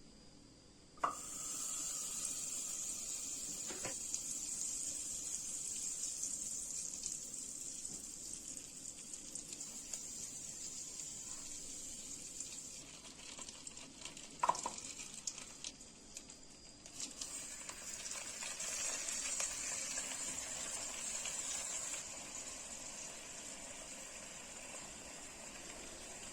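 Slices of taro frying in hot oil: a steady sizzle that starts with a sharp click, with another sharp click partway through and a brief lull before the sizzle picks up again.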